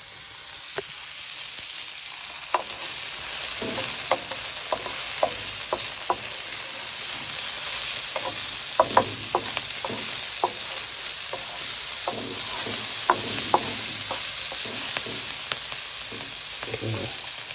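Onions and chillies sizzling as they fry in a pan, a steady hiss that builds over the first couple of seconds, with a utensil stirring and clicking against the pan now and then.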